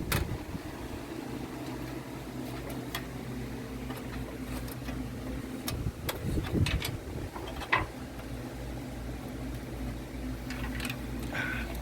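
Steady fan hum with a few light clicks and taps of computer parts being handled.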